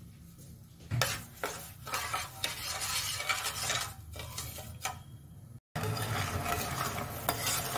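Metal spoon stirring and scraping sugar and water around a stainless steel pan as it heats into syrup, with clinks against the pan and a soft bubbling sizzle underneath. The stirring starts about a second in.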